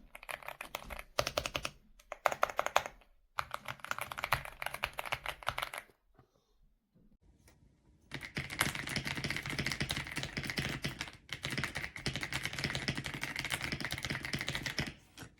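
Typing on an Aula F99 mechanical keyboard with Graywood V3 switches: rapid key clicks for about six seconds, a pause of about two seconds, then a faster, denser run of keystrokes to the end.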